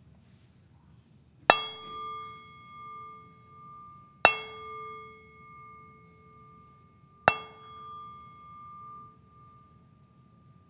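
Singing bowl struck three times with a wooden striker, about three seconds apart. Each strike rings on in clear, steady tones that waver as they fade over several seconds.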